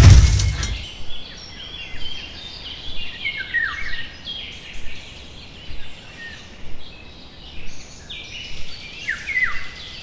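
Small birds chirping, short falling chirps repeated every second or so. At the start, the tail of a loud crash fades out within the first second.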